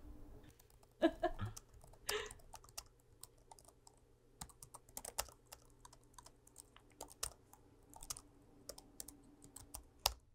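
Typing on a laptop keyboard: irregular, fast key clicks, with louder clacks about a second and two seconds in.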